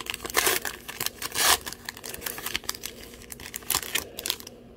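Paper trading-card pack wrapper being torn and crinkled open by hand, a series of crackling rips and rustles that are strongest in the first second and a half, then lighter ticks and rustling. The wrapper is a tough one that resists tearing.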